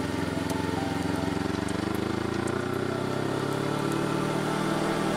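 Suzuki GSX250R's parallel-twin engine running on the road, its pitch rising gradually through the second half as the bike speeds up, over a steady rush of wind.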